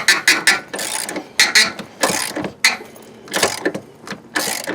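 Ratchet wrench clicking in several short bursts, stroke after stroke, as the bolt of a car battery's hold-down clamp is loosened.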